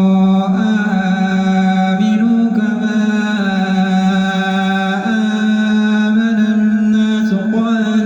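Solo male voice chanting Quranic verses in the Warsh reading, with long drawn-out vowels held on steady notes. The pitch steps to a new note a few times, and there is no pause for breath.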